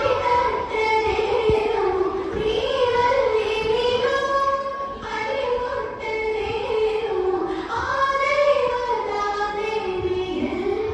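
A high singing voice carries a slow, ornamented melody over music, holding long notes that bend and waver in pitch; this is the song accompanying a Bharatanatyam dance.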